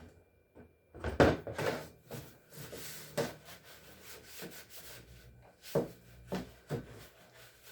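Handling noise: several separate knocks and thuds with rubbing and scraping in between, as hard objects are moved and set down on a surface.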